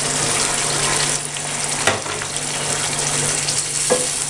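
Water poured from a bowl into a hot frying pan of chicken curry, splashing and sizzling as it hits the pan. The curry is then stirred with a wooden spoon, with a couple of short knocks.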